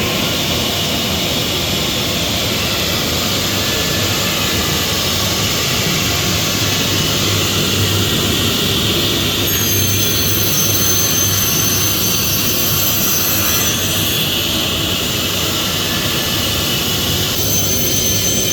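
Saw blade on a CNC router spindle cutting laminated chipboard: a loud, steady run of high-speed cutting noise. A high whine comes in about ten seconds in, drops out near fourteen seconds and returns near the end.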